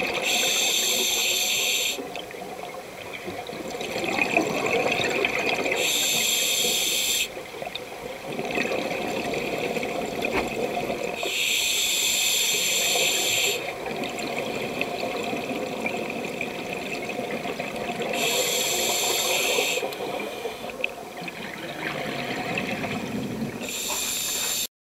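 Underwater scuba breathing through a regulator: five bubbling exhalations, each about one and a half to two seconds long and roughly six seconds apart, with quieter breathing sound between them.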